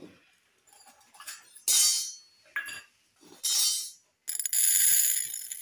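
Hot metal cooking pan of roasted mustard and fenugreek seeds clinking and scraping as it is gripped with a cloth and lifted off a small stove. There are several short scraping bursts, then a longer rattling hiss near the end.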